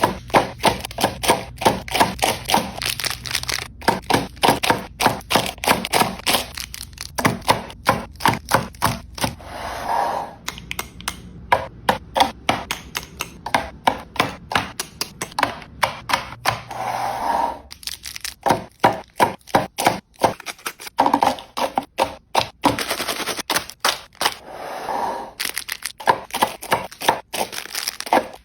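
Snack packages being handled and set down in a restock: a rapid run of sharp clicks and clacks, with a few short bursts of plastic wrapper crinkling.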